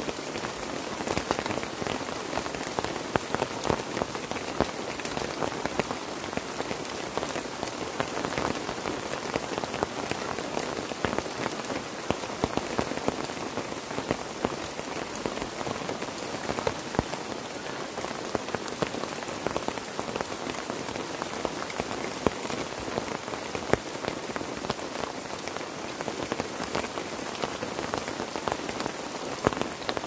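Heavy, steady rain falling on a forest campsite, with many separate drops heard as sharp ticks through the constant hiss.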